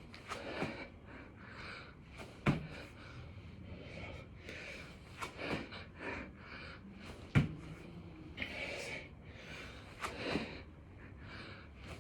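A person breathing hard with forceful gasps and exhalations while doing burpees, with a sharp thump on the floor twice, about five seconds apart, once per repetition.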